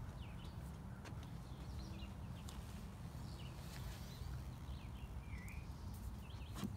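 Small birds chirping in the background, short high calls scattered throughout, over a steady low rumble, with a few faint clicks.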